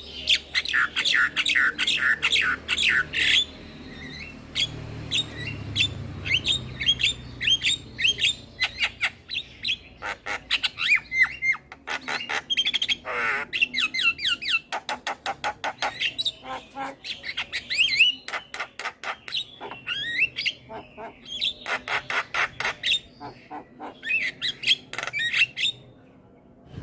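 Javan myna singing: fast strings of sharp, rapidly repeated chattering notes and whistles, in runs broken by short pauses, from a full repertoire of mixed calls.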